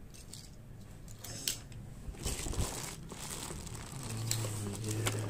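Thin clear plastic bag crinkling in short irregular crackles as it is handled and pulled around a boxed toy. A low steady hum joins about four seconds in.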